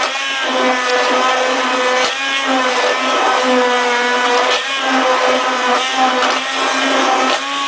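Handheld immersion blender running steadily in a pot of butternut squash soup, pureeing it with an even motor hum.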